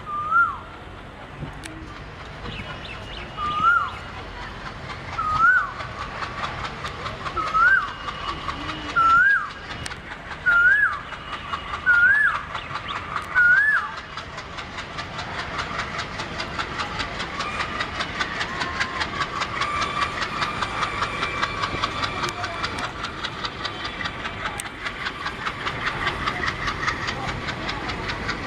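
Eight loud whistled calls in the first half, each gliding up and dropping back and each a little higher and louder than the last. From about halfway, an ALCO WDG3A diesel locomotive's 16-cylinder engine runs with a fast, even beat that grows steadily louder as it works up to pull away.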